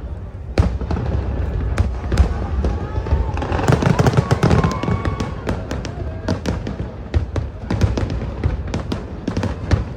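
Fireworks bursting in a rapid series of bangs and crackles, thickest and loudest about four to five seconds in.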